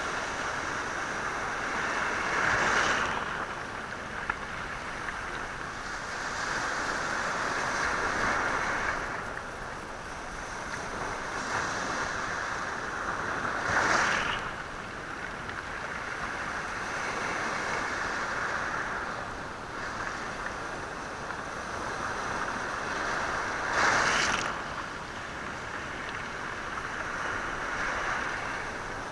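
Sea waves breaking and washing over a stony, rocky shore, stirring the stones. The surf is steady, with three louder surges about ten seconds apart.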